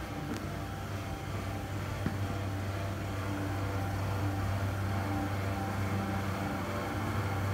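Steady low machine hum with a few fainter steady tones above it, growing slightly louder toward the end, with a couple of faint ticks.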